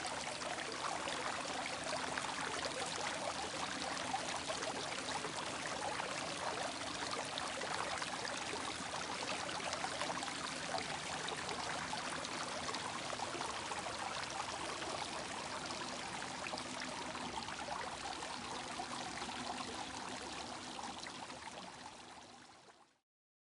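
Flowing water rushing steadily, fading out over the last few seconds.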